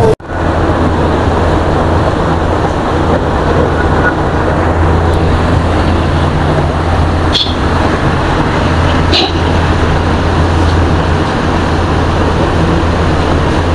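Steady low mechanical hum over a rumbling background noise, with two short sharp clicks about seven and nine seconds in.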